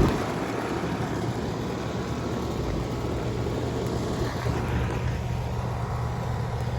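Outdoor residential heat pump unit running in cooling mode: a steady low hum from the compressor over the even rush of the condenser fan's air.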